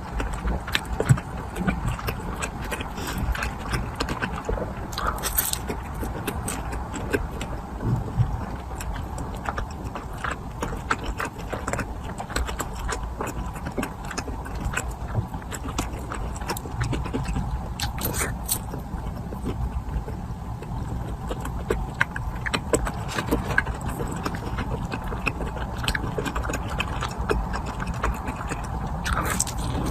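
Close-miked chewing and crunching of food, with many short irregular crackles over a steady low hum.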